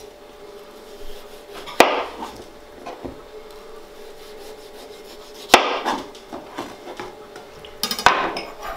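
Chef's knife slicing through a peeled raw potato and knocking on a plastic cutting board: three sharp knocks a few seconds apart, the last a quick cluster.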